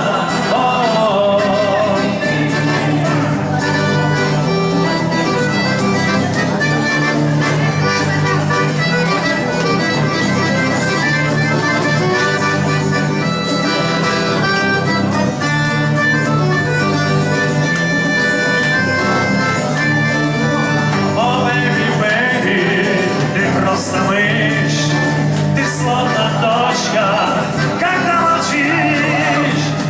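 Instrumental passage of a pop song: a full band with a steady beat and long held melody notes, without the lead vocal.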